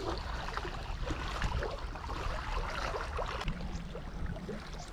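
Wind buffeting the microphone and small waves lapping against the shore rocks, with scattered small ticks and one sharp click about three and a half seconds in.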